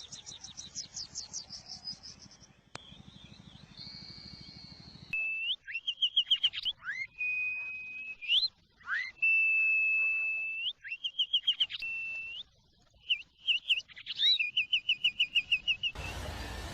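Sirtu (sridung) songbird singing: a quieter, fast, high trill at first, then from about five seconds in a loud song of rapid repeated notes, quick rising sweeps and long level whistles.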